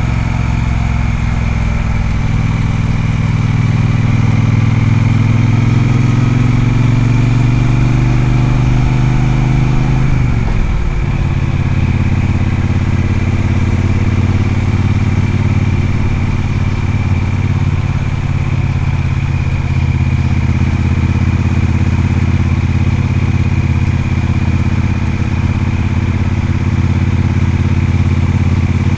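Triumph Speedmaster's parallel-twin engine running under way: the engine note climbs slowly for about ten seconds, drops sharply as the revs fall, then holds steady at a cruise.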